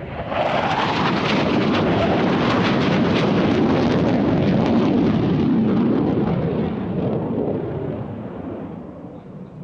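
Panavia Tornado GR4 jets passing in afterburner, their twin Turbo-Union RB199 turbofans giving loud, crackling jet noise. It comes in suddenly, holds steady, and fades away over the last few seconds.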